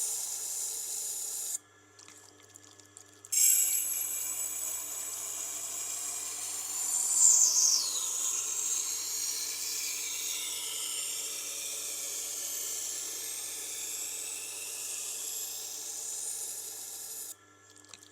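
Knife blade being ground on a Tormek's water-cooled grinding stone: a steady hissing scrape over the machine's low motor hum. The scraping stops for a moment about two seconds in and again near the end, as the blade comes off the stone, while the hum carries on.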